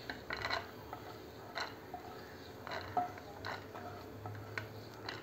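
A spatula scraping ghee-roasted cashews, almonds and pistachios across a nonstick frying pan and off it: light, irregular clicks and scrapes, about eight in all.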